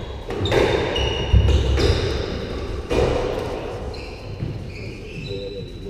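Squash ball being struck and hitting the walls of an enclosed court, sharp cracks that echo, about half a second in and again near three seconds, with a heavier thud in between. Short high squeaks of sports shoes on the wooden court floor come and go.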